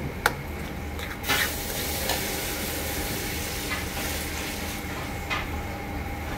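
Metal spoon stirring and scraping a thick soybean-paste and chili seasoning in a pan, with a few light clicks of the spoon against the pan. Under it the paste sizzles faintly as it is lightly fried over low heat.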